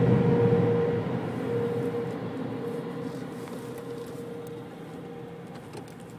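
Steady rushing noise with a constant hum, heard from inside a car as it drives off, fading steadily away.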